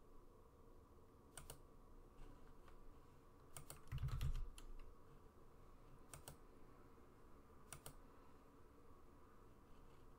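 Faint, scattered clicks of a computer mouse and keyboard, several of them double press-and-release clicks. About four seconds in comes a short run of keystrokes with a dull knock.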